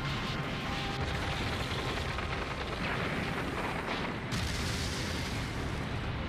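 Anime battle sound effects: a dense, continuous rumble of blasts and impacts as Luffy's punches land, with a sudden rush of hissing noise about four seconds in as swirling sand sweeps up.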